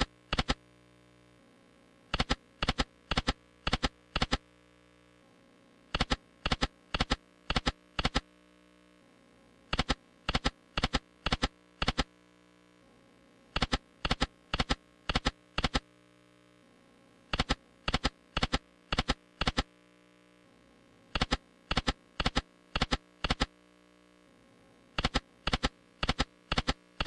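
Video slot machine reel-stop sound effects: a quick run of sharp clicks, one as each of the five reels lands. Spin follows spin about every four seconds, none of them winning, with near silence between the runs.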